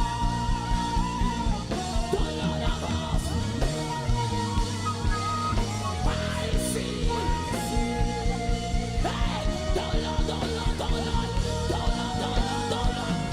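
Live worship band music: drums and bass keeping a steady beat under a sustained guitar or keyboard melody line, with some singing over it.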